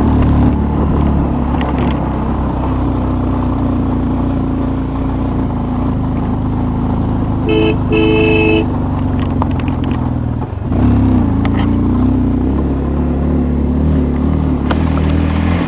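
Vehicle engine running steadily, heard from inside the cabin while riding. A horn sounds twice in quick succession about eight seconds in. Around eleven seconds the engine sound briefly drops, then picks up again.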